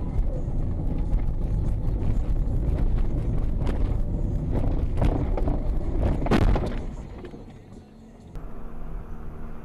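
Dashcam car's tyre and road rumble on a slushy snow-covered road, with a few knocks and one sharp bang about six and a half seconds in as it collides with a car pulling out from the left. The rumble then dies down, and near the end a different car's steady road noise begins.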